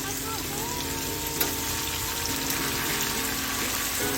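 Grass carp fish frying in peanut oil on an iron tawa, a steady sizzle.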